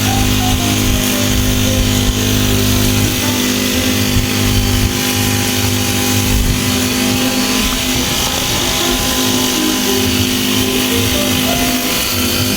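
A small engine running at a steady speed.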